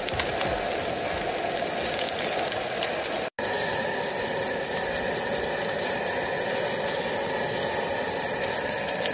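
Trout pieces frying in oil in a pan on a canister gas camp stove: a steady sizzle. It cuts out for an instant about three seconds in, then carries on.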